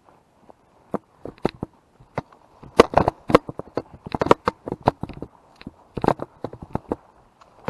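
Footsteps crunching through dry leaves and brush, with twigs snapping underfoot in an uneven series of sharp cracks, a few a second, thickest from about three seconds in.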